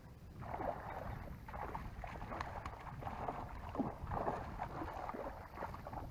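Irregular splashing of water as a hooked fish thrashes at the surface near the boat. There is low wind rumble on the microphone.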